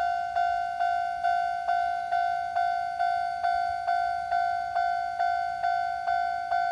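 Japanese railway level-crossing warning bell ringing in the older standard tone, a steady ding-ding struck a little over twice a second, each strike fading before the next.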